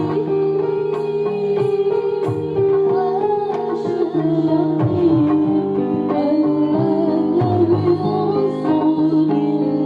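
Marawis modern ensemble playing: a wavering melody over held tones, with regular hand-drum strokes.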